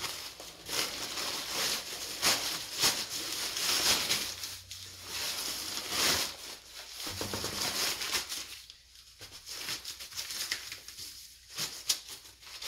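Fabric tire tote being worked over a tire: irregular rustling and rubbing of the cloth with scattered small clicks and knocks, dropping off for a while after about eight seconds.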